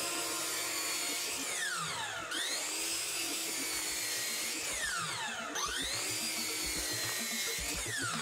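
Miter saw motor whining as it cross-cuts a hardwood cutting board. Its pitch sinks and then climbs back sharply about three times as the saw is worked through repeated cuts.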